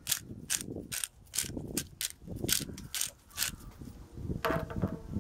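Hand-held pepper grinder twisted over the pot: a quick run of crunching, ratcheting clicks, about three a second, that stops about three and a half seconds in.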